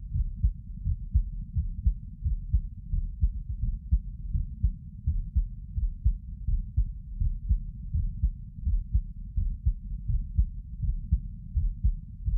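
A person's heartbeat heard close up while they sit: steady, low, muffled thumps at about one beat a second.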